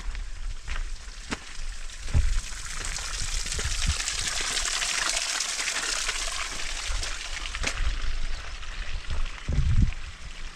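A small trickle of water spilling from the hillside and splashing onto rocks, growing louder about two seconds in, strongest in the middle and fading near the end, with footsteps crunching on a dirt trail.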